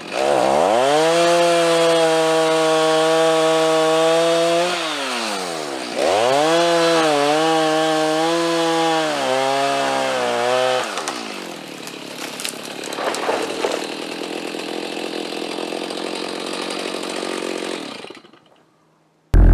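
Two-stroke chainsaw revved to full throttle twice, each time for about four to five seconds, dropping back between and after. It then runs at idle and cuts off about a second before the end.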